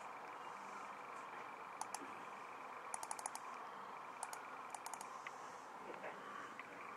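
Computer mouse clicking, a couple of single clicks about two seconds in and quick runs of four or five clicks around three and five seconds in, over a faint steady hum.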